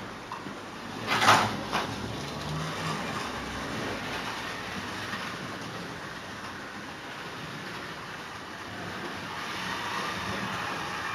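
Model railway locomotive running on the layout track, a steady rumble that gently swells and fades, with a sharp clatter about a second in.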